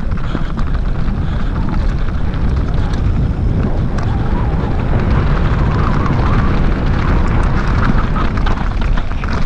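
Heavy wind buffeting on the microphone of a camera riding a mountain bike down a loose gravel trail, a steady low rumble, with the constant clicking and rattling of the tyres and bike over stones.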